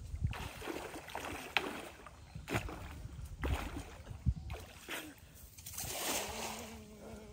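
Water sloshing and splashing in a series of strokes, about one a second.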